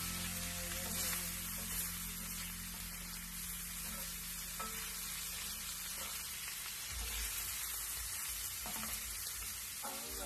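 Diced pork sizzling as it fries in a hot cast-iron skillet, stirred with a wooden spatula, with a few light clicks of the spatula against the pan.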